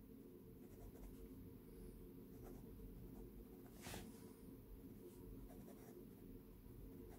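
Steel fine nib of a vintage Inoxcrom fountain pen scratching faintly across lined notebook paper as words are written by hand, with one light tick about four seconds in.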